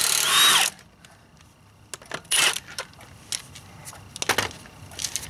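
A Milwaukee M18 Fuel half-inch cordless impact wrench runs for under a second, spinning out a 17 mm wheel lug bolt. It is followed by light metallic clinks and two more short bursts of noise, as the loose lug bolts are handled.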